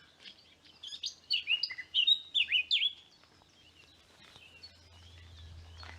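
A songbird singing one short burst of quick, sharp notes that slide in pitch, starting about a second in and lasting about two seconds, followed by a few faint calls.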